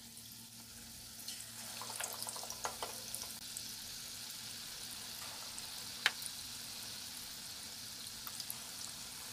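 Batter-coated potato vadas deep-frying in hot oil in a kadhai: a steady sizzle with scattered small crackles, slightly louder after the first second. One sharp click sounds about six seconds in.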